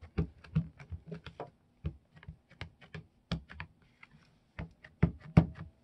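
An ink pad tapped again and again onto a plastic 3D embossing folder to ink it: a quick run of light taps, about three a second, with a brief pause about four seconds in.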